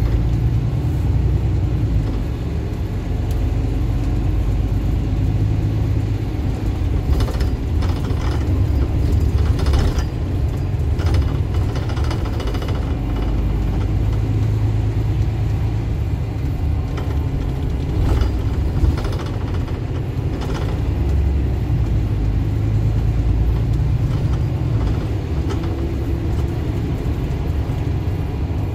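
Interior of a moving single-deck bus: the diesel engine and road rumble run steadily, swelling in loudness a few times as the bus pulls away and accelerates, with a few short rattles and clicks from the cabin.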